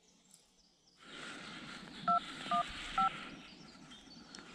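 Smartphone keypad dial tones as a phone number is dialed: three short two-tone beeps about half a second apart, over a faint background hiss.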